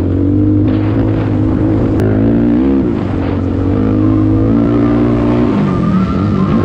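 A racing ATV's engine running hard, its revs dropping and climbing again about three seconds in and once more near the end, as between gears or through corners.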